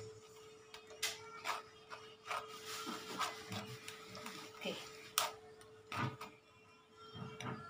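Metal sieve scraped and knocked while blended sardine-bone liquid is strained through it into a pot, a thin stream of liquid dribbling through. Several sharp knocks, the loudest about a second in and about five seconds in.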